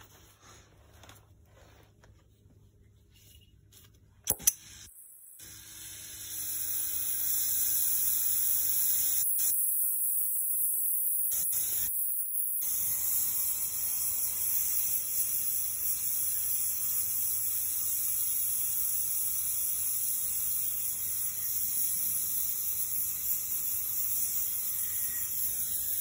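Smith QuickBraze oxy-acetylene torch with a five-flame tip being lit, with a couple of sharp snaps about four seconds in, then hissing steadily as it heats a copper tube joint for brazing.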